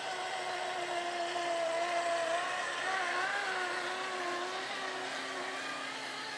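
Radio-controlled model truck's motor and drivetrain whining as it tows a loaded trailer across grass, the pitch wavering with the throttle and loudest about two to three seconds in.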